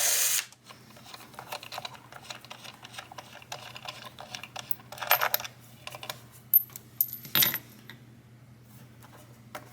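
A power screwdriver whirs briefly and stops about half a second in, backing out a pickguard screw. Then come small irregular clicks and light metallic clatter as screws and hardware are handled and set down, with a few sharper clicks near the middle.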